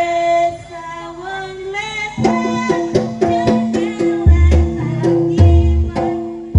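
Live jaranan band music. A held melody line slides in pitch, then from about two seconds in the percussion comes in with struck notes and drum, and a deep bass drum hits about once a second.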